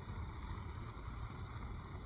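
Steady low wind rumble on the microphone, over water running from a garden hose into a plastic bucket.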